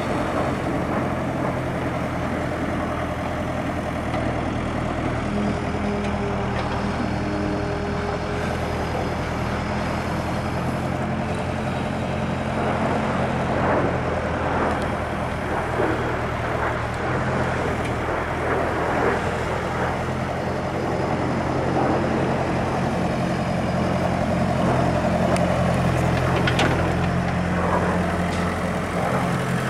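Diesel engine of a Volvo EW55 wheeled excavator running steadily while the boom and bucket are worked, its note shifting slightly now and then as the hydraulics take load. A short sharp click near the end.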